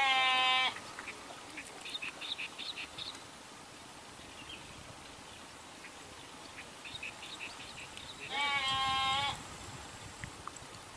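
A goat bleating twice, each a single steady bleat under a second long, once at the start and again about eight seconds later, with short high bird chirps between them.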